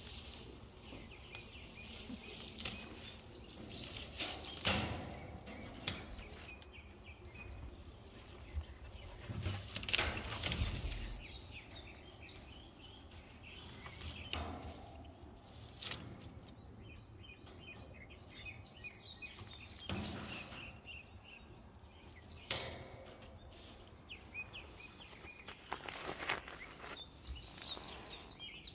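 Outdoor background of small birds chirping, with scattered knocks and rustles from handling close to the microphone.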